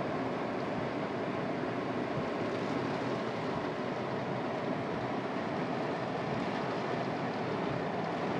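Steady noise inside a car driving in heavy rain: tyres on the wet road and rain on the car.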